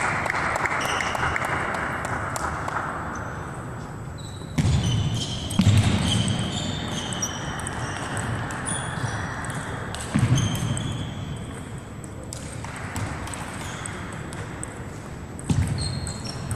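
Table tennis rallies: celluloid balls clicking off paddles and tables again and again, with short high sneaker squeaks on the hall floor. Several low thumps come and go through the clip.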